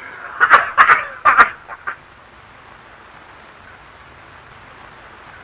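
Hearty laughter in several short bursts over the first two seconds, then only the steady hiss of an old film soundtrack.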